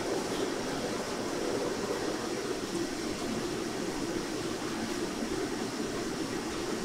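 Steady rushing background noise of a commercial kitchen, even throughout with no distinct knocks or clicks.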